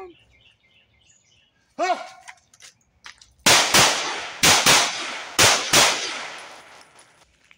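Six shots from a subcompact 9mm pistol fired as three quick double taps, one pair on each of three targets, each shot trailing off in a short echo. A short shout comes about two seconds in, just before the shooting.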